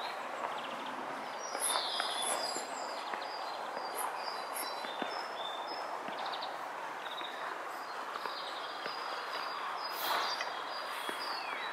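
Small birds chirping repeatedly over a steady background rush of outdoor noise.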